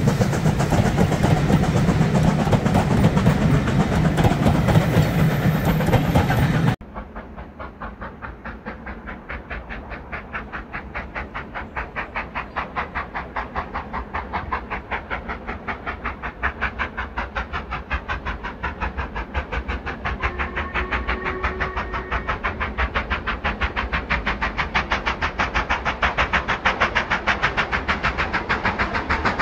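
A loud engine-like rumble cuts off abruptly about seven seconds in, followed by a Black 5 steam locomotive working toward the listener, its rapid, even exhaust beats growing steadily louder.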